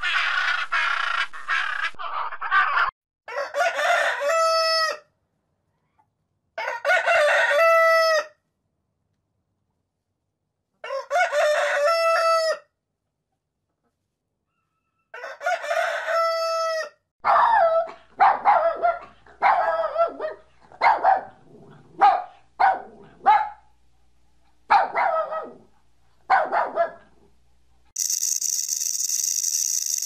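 A blue-and-yellow macaw squawks briefly at the start, then a rooster crows four times, each crow ending on a long held note. Then come about a dozen short clucks, roughly one a second, and near the end a steady high hiss begins.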